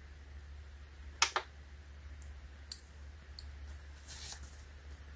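Light handling noises: a quick double click, then a single click and a few small ticks, as a phone in a hard case is handled and moved, followed by a brief soft rustle about four seconds in.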